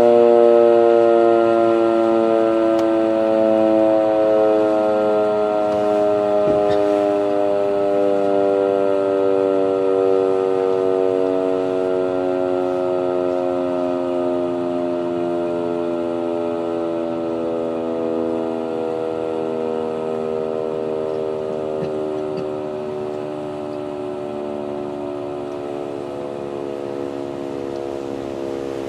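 Erick outdoor warning siren winding down after a short alert: its chord of several tones falls slowly in pitch and fades steadily.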